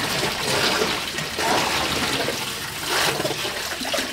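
Tap water running steadily into a concrete laundry sink, with sloshing and splashing as clothes are worked by hand in the water; the splashing swells a couple of times.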